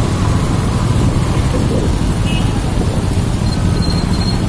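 Engines of a slow-moving column of motorcycles and cars: a dense, steady rumble of traffic heard from among the riders.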